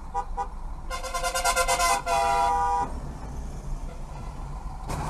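Car horns honking in traffic: a few short toots, then one long blast of about two seconds, over low engine and road noise. A sudden loud noise starts right at the end.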